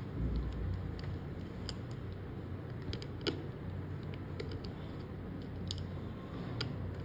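Light, irregular clicks and taps of a small metal hand tool working on the opened phone's frame and motherboard, with one sharper click about three seconds in, over a steady low hum.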